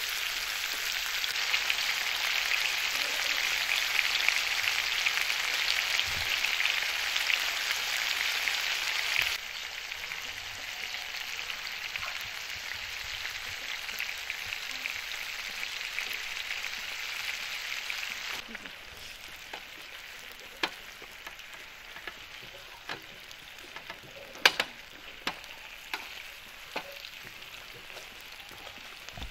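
Chicken drumsticks sizzling and crackling in hot fat in a wide pan over a wood fire. The sizzle is dense and loudest at first, drops in level twice, and in the last third thins out to scattered sharp pops, the loudest about 24 seconds in.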